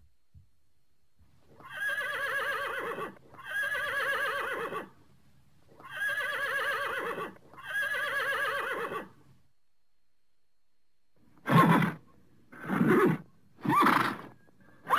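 Horse whinnying: four long neighs with a quavering, trembling pitch, each lasting over a second, then after a short pause a run of shorter, louder calls in quick succession.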